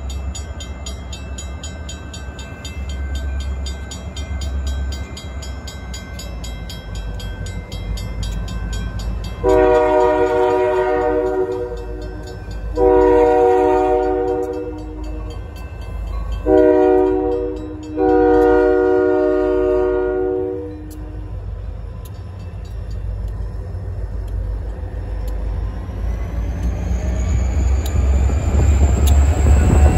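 Buffalo & Pittsburgh GP40-3 diesel locomotive sounding its air horn in the grade-crossing pattern: long, long, short, long. Under the horn is the steady low rumble of its diesel engine, which grows louder with a high rising whine near the end as the locomotive draws alongside.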